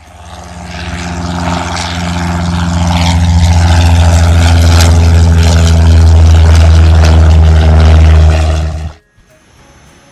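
Cessna Skyhawk's piston engine and propeller, a steady low drone that grows louder as the plane comes nearer, then cuts off abruptly about nine seconds in.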